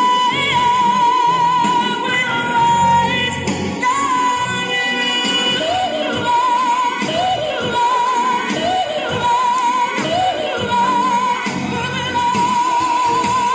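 Music with a sung vocal line, long notes held with a wavering vibrato over a backing track.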